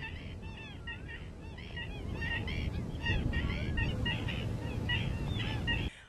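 A flock of flamingos calling, a dense chatter of short, overlapping, goose-like honks, over a low rumble.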